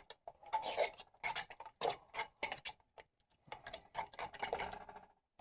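A spoon stirring thick gravy in a pot, with irregular clinks and scrapes against the pot, pausing briefly about three seconds in.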